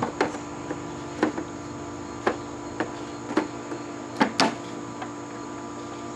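Hinged plastic top cover of a dot matrix printer being lifted and set back onto its hinges: a string of sharp plastic clicks and knocks, the loudest two close together about four seconds in, over a steady hum.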